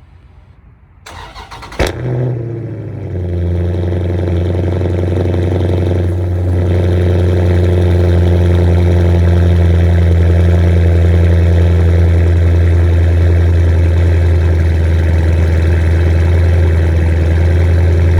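2018 Dodge Charger Scat Pack's 6.4-litre (392) HEMI V8 cold-starting through a resonator-deleted exhaust: about a second of starter cranking, a loud bark as it catches, then a steady fast idle.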